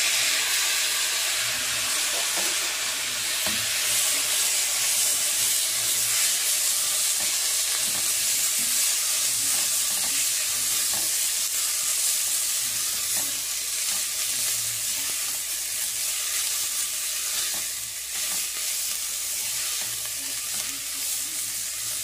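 Soy mixture sizzling as it fries in butter in a pot over high heat, stirred and scraped steadily with a silicone spatula.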